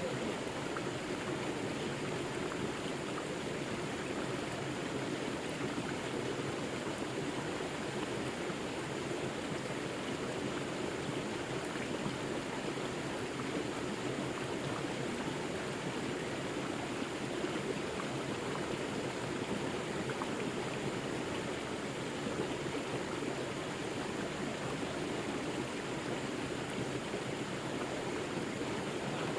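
Forest river flowing: a steady, even rush of water that does not change.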